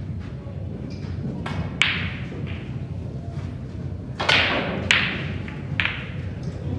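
Snooker shot: the cue strikes the cue ball and a few sharp clicks follow as the balls hit each other and the cushion, about four to six seconds in, with a single sharp click about two seconds in.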